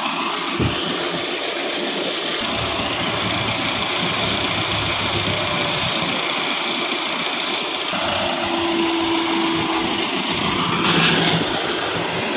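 Massey Ferguson 385 tractor's diesel engine running steadily while it works a loaded sand trolley stuck at a gate, with a single knock about half a second in.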